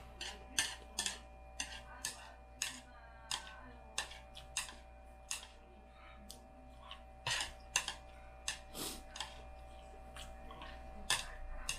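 Close-up mouth sounds of someone eating jajangmyeon noodles: a run of wet smacks and clicks, about two a second, which pause in the middle and then come back more scattered.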